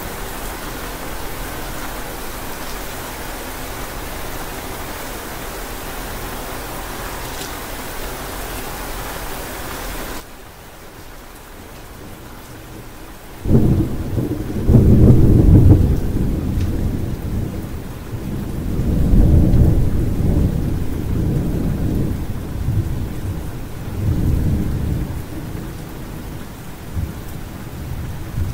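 Steady rain hiss that cuts off abruptly about a third of the way in, leaving softer rain. A few seconds later thunder breaks in suddenly and rolls in several low rumbling waves over the rain.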